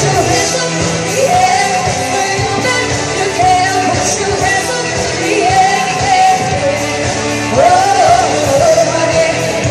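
Rock song with a singer's voice carrying long, bending phrases over a full band accompaniment.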